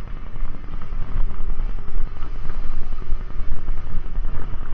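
Wind buffeting the microphone over a loud, uneven low rumble, as of a mountain bike ridden over a rough stone track.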